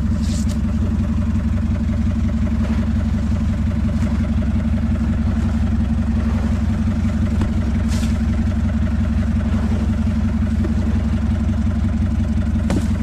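Fishing boat's engine running at a steady, even drone, with a couple of faint brief clatters over it.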